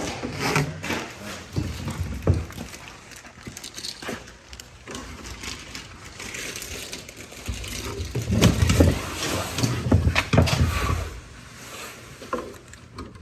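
Handling noise from hands working with small parts and tools: rustling, clicks and knocks, with heavier muffled thumps for a few seconds past the middle.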